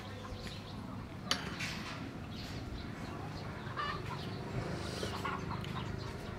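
Chickens clucking in the background, with a single sharp clink of a spoon against a ceramic soup bowl about a second in.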